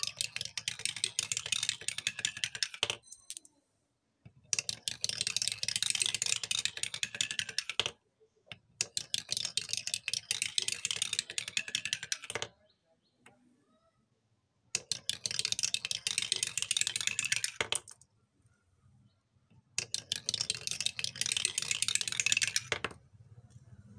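Marbles clattering down a wooden spiral marble-run tree, one after another: each descent is a quick run of clicks and knocks as the marble drops from leaf to leaf, lasting about three seconds. There are five runs in all, separated by short pauses.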